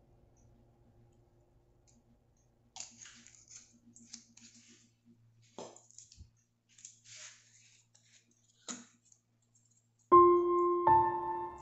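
Faint scattered clicks and light scrapes from hands handling a small bottle and a measuring spoon over a plastic mixing tub. About ten seconds in, soft piano music starts and becomes the loudest sound.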